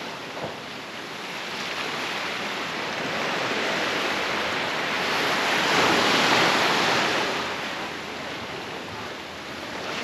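Small waves washing up on a sandy beach: the surf swells to its loudest about six seconds in, then falls away.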